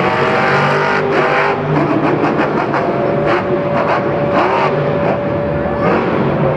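Monster truck's supercharged V8 engine revving up and down through a freestyle run, heard from high in the stadium stands.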